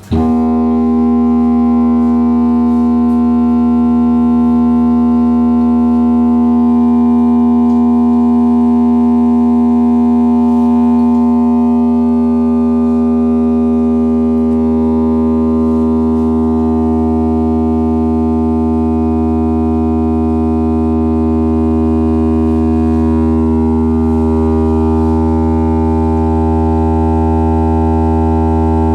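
Loud, steady electronic test tone from speakers, a buzzy pitched hum with many overtones. It switches on suddenly and holds one unchanging pitch.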